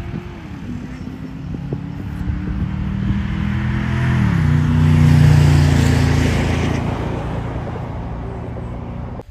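A pickup truck and a Corvette launching down a drag strip, their engines revving hard through the gears, with a clear upshift about four seconds in. The sound is loudest as they pass about five seconds in, then fades down the track.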